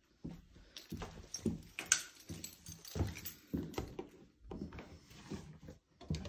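Footsteps on a laminate floor in a small room, soft irregular thuds about twice a second, mixed with rustling as the phone is carried.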